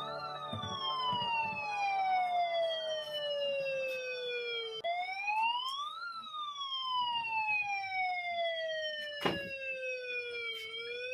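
Electronic siren wailing, its pitch rising quickly and then falling slowly, peaking about every six seconds. A sharp click comes about nine seconds in.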